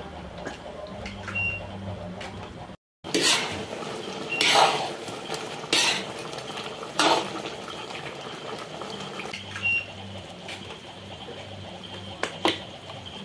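Metal ladle scraping and clanking against the sides of a metal wok as a chicken stew in cream sauce is stirred. A run of loud scrapes comes a few seconds in, and one more near the end, over the low bubbling of the simmering sauce.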